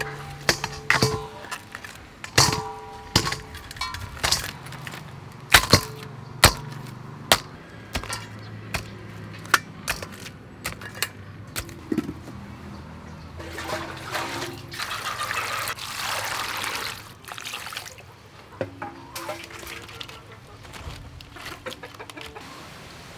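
Blue crab shells clicking and knocking against each other and against a metal tray and bowl as the crabs are picked up and handled. About halfway through, water pours or splashes for roughly four seconds.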